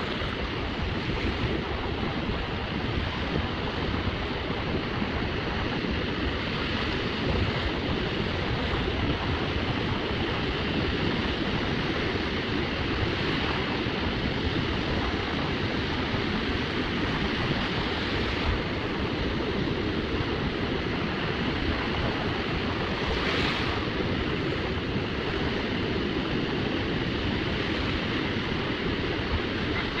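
Small waves washing steadily onto a sandy beach, with wind on the microphone.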